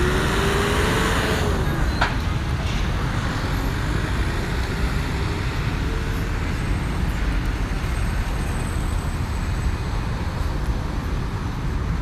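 Street traffic noise: vehicles passing on a road as a steady rumble. In the first two seconds one engine note rises and falls, and there is a single sharp click about two seconds in.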